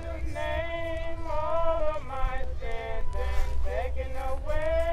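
A voice singing a melody in long held notes that step and glide between pitches, over a steady low rumble.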